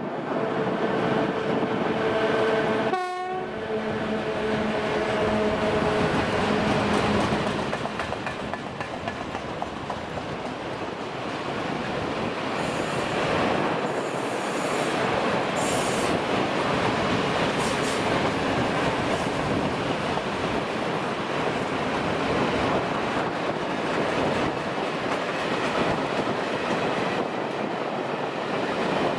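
ET22 electric locomotive passing at the head of a train of loaded open coal wagons. A steady multi-tone horn sounds for about the first seven seconds, then the wagons roll by with a continuous rumbling clatter, with a few brief high squeals around the middle.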